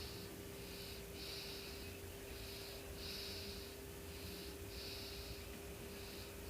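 Slow, regular breathing close to the microphone: soft hissing in-and-out breaths, a pair about every two seconds, over a steady hum.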